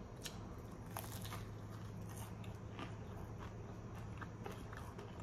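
Close-up crunching of a crispy fried egg roll being bitten and chewed: irregular crisp crackles and crunches, over a faint steady low hum.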